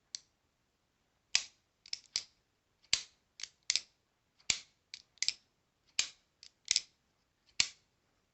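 Folding knife being opened and closed over and over: a string of short, sharp clicks, often in close pairs, about one group a second.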